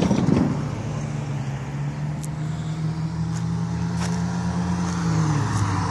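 Car on the road driving toward the crossing: a steady low engine hum with tyre noise that holds for several seconds, shifting slightly near the end.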